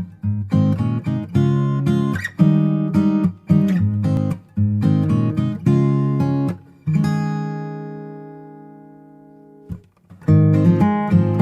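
Background music of acoustic guitar strumming chords in a steady rhythm. About two-thirds of the way through, one chord is left ringing and slowly fades for a few seconds before the strumming starts again.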